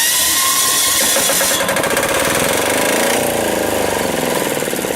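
Small diesel generator engine starting: it is cranked and catches, then settles into an even running rhythm from about three seconds in. This follows bleeding air out of its injection pump's fuel line, so it now fires.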